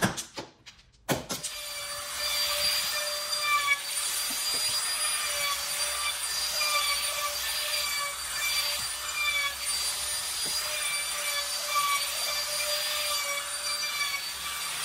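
Stanley compact trim router running at speed and cutting along the edge of a wood panel, a steady high-pitched whine over the cutting noise. A few sharp knocks come first, and the router starts up about a second in.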